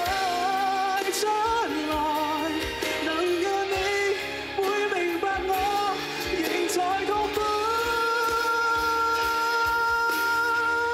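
Male singer performing a slow Cantopop ballad live into a microphone with band accompaniment, the melody settling into a long held note for the last few seconds.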